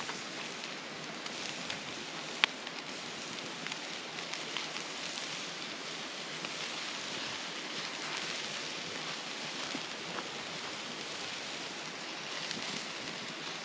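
Campfire crackling under a grill of burger patties, with one sharp pop about two and a half seconds in, over the steady rushing of a creek.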